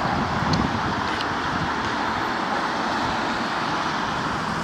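Steady road traffic noise from cars passing on a busy street.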